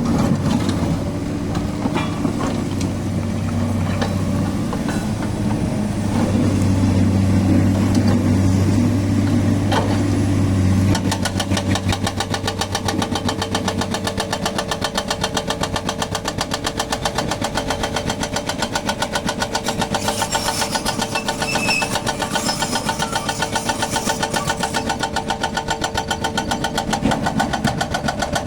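Volvo excavator's diesel engine running with scattered knocks, then about eleven seconds in its hydraulic breaker hammer starts up and keeps striking in a fast, even rattle of blows.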